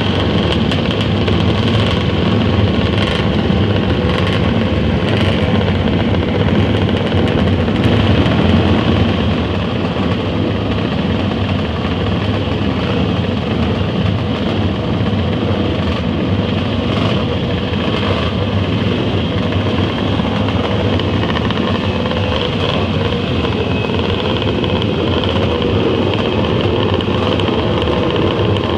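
Several vintage racing motorcycle engines running together at once in a steady, unbroken din.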